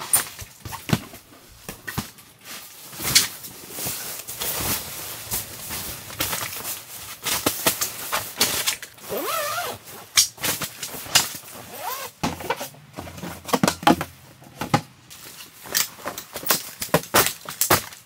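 Camping gear being handled: the nylon of a sleeping bag and sleeping pad rustling and swishing on a fabric camp cot, with many small clicks and knocks. A brief squeak about halfway, and more clicks near the end as a small folding table is set up.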